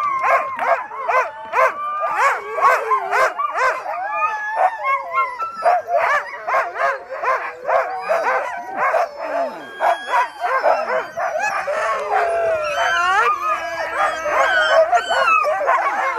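A team of excited sled dogs barking, yipping and howling all at once, eager to set out. Quick barks crowd the first few seconds, then howls and whines take over, with rising howls about three quarters of the way through.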